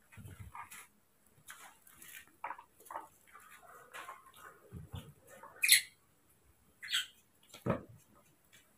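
Knife cutting a papaya over a plastic plate: small scrapes and a couple of soft thumps, with a few short high squeaks from baby monkeys.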